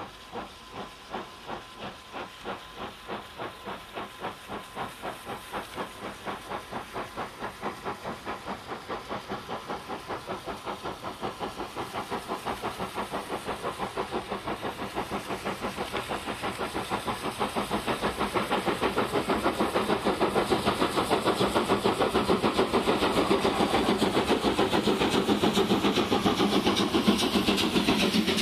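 Large steam locomotive hauling a passenger train and working hard: a steady run of chuffing exhaust beats with a hiss over it, the beats coming faster and growing louder as it approaches and draws close.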